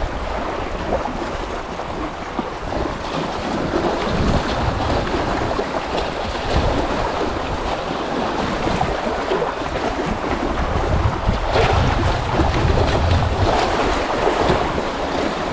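Sea waves washing and breaking against shoreline rocks, with gusts of wind buffeting the microphone about a third of the way in and again in the latter half.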